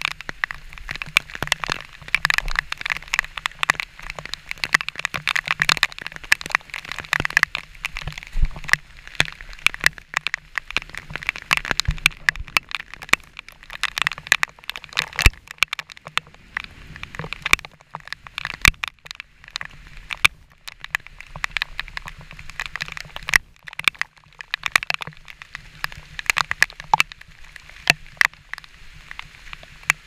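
Raindrops and waterfall spray striking a GoPro Hero 4's waterproof housing in dense, irregular taps, over a steady hiss of falling water.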